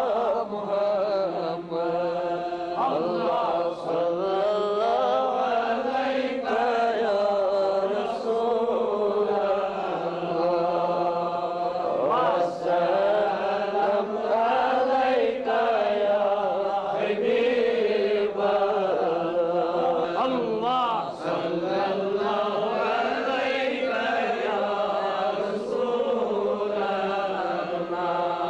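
Men's voices chanting a devotional melody, long drawn-out lines that slowly rise and fall in pitch.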